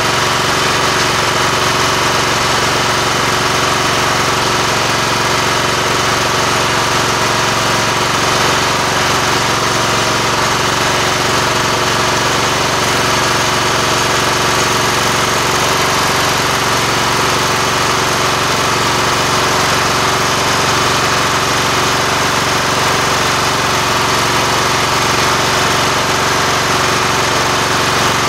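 John Deere LT150 lawn tractor's Kohler engine running steadily, just back together after a cylinder head gasket job.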